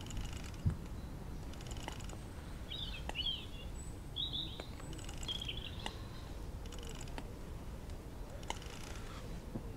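A small bird chirps several times, in two short clusters a few seconds in, over a steady low rumble. There is a single sharp thump just under a second in, and short ticking rasps recur every second or two.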